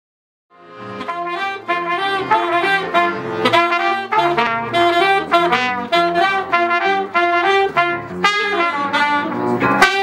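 Small live jazz band with trumpet and saxophone playing a lively tune, accordion accompanying, fading in from silence about half a second in.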